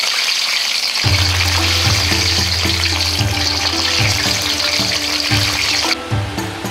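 Spring rolls deep-frying in a wok of hot oil: a steady sizzle that cuts off suddenly near the end. Background music with a bass line comes in about a second in.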